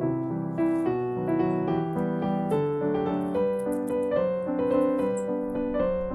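Background piano music, a gentle melody of held notes over a steady accompaniment.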